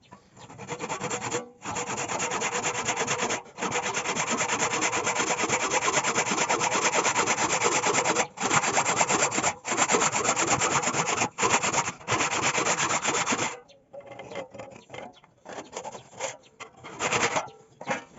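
Wood being abraded by hand, as in sanding or rasping: rapid scratchy strokes run almost without a break, pausing briefly several times. The scratching stops about three-quarters of the way through, and a few light knocks and taps follow.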